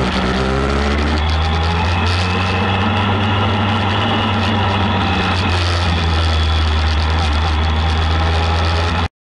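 Yamaha Fazer 1000 (FZ1) inline-four engine running steadily at low revs as the bike rolls slowly down the pit lane. The sound cuts off suddenly just before the end.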